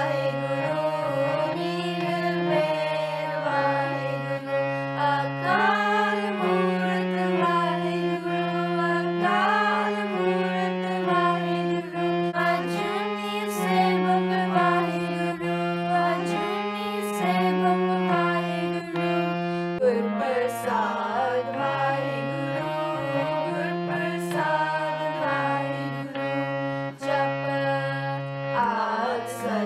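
Background music: a melody of held, wavering notes over a low bass line that steps between a few notes about once a second.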